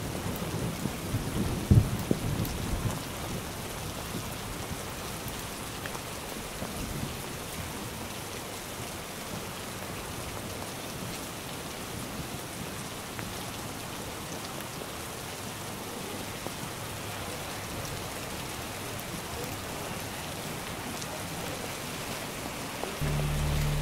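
Steady heavy rain falling and pattering on wet boardwalks and railings. There are a few low rumbling thumps in the first three seconds, and music with steady low notes starts near the end.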